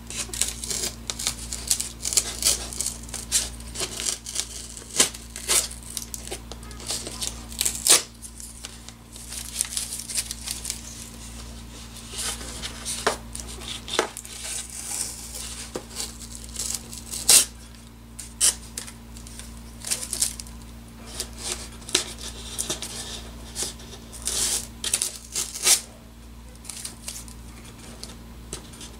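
Blue masking tape being peeled off a foam seaplane float in short, irregular rips and crackles. Some of the tape is stuck to dried urethane glue.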